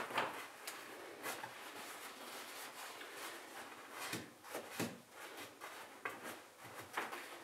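Quiet handling of a freshly glued wooden frame: faint rubbing of hands and a rag on the wood, with a couple of soft knocks about four and five seconds in.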